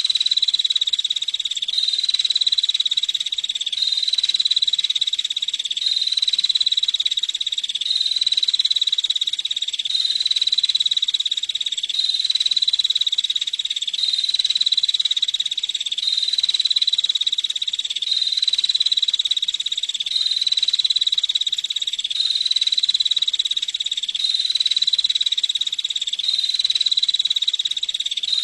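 Female prinia (prenjak) calling in a fast, dry, high-pitched ticking trill, in near-identical phrases that repeat evenly about every two seconds.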